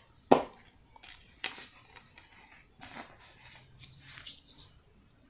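Small plastic bags crinkling and tapping as they are handled and set down on a plastic-covered canvas: a sharp tap about a third of a second in, more taps about a second and then about two and a half seconds in, then light crackly rustling that dies away near the end.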